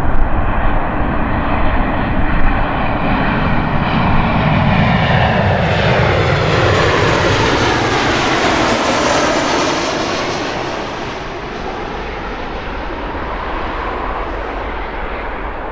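Boeing 737-800 jet airliner with CFM56 turbofan engines passing by on its landing approach. Its engine whine glides down in pitch as it goes past, and the sound eases off after about ten seconds.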